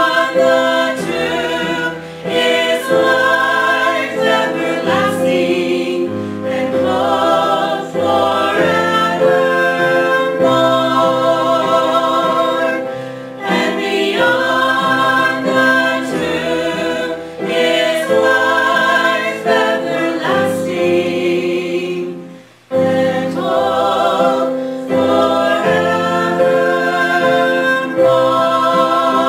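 A vocal quartet of mixed men's and women's voices singing in harmony, in long held phrases with a short breath-break between phrases about three quarters of the way through.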